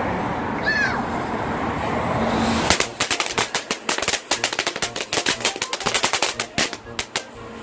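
Ground fountain fireworks crackling: a dense, rapid string of sharp cracks starts suddenly about three seconds in and keeps going.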